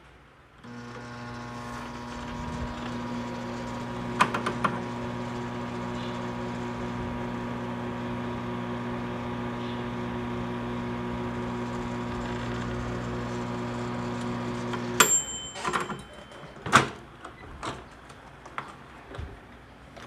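Microwave oven running with a steady electrical hum from its magnetron and high-voltage transformer, heating normally with a freshly fitted mica waveguide cover. About 15 seconds in the hum cuts off and the mechanical timer bell dings once, followed by a few clunks.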